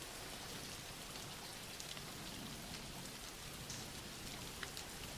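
Soft steady rain falling on a surface, with small drops pattering.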